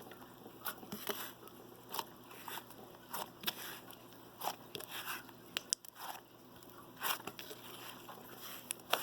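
Slime being worked, giving irregular sticky clicks, pops and short crackles, about one or two a second.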